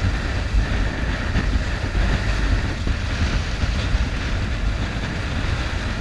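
Steady rush of wind buffeting the microphone and water rushing along the hull of a sailboat sailing close-hauled in heavy wind, with spray coming aboard.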